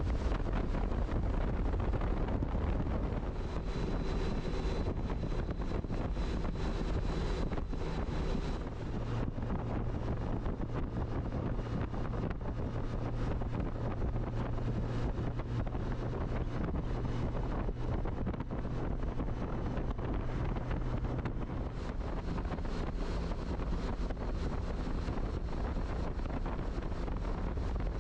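Wind rushing over a helmet-mounted action camera's microphone on a motorcycle at highway speed, over a steady engine hum that shifts slightly in pitch a couple of times.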